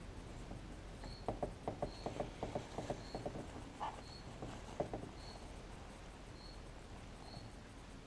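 Light handling noise from working on a clamped knife: a quick run of soft clicks and taps over a few seconds, then quieter rustling. The clicks come as the freshly epoxied handle is pressed and wiped down.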